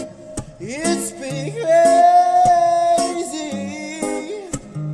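Acoustic guitar strumming with a singing voice that glides up about a second in and holds one long note.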